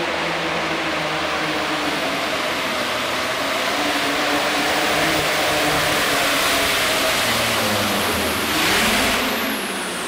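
International Harvester super farm pulling tractor's turbocharged diesel engine running flat out under load as it drags the weight-transfer sled. It surges louder just before the end, then a high whistle falls in pitch.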